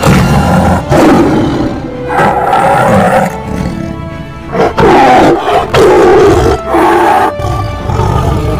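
Tiger growling and roaring in a string of loud calls, each about a second long, with short breaks between them, over background music.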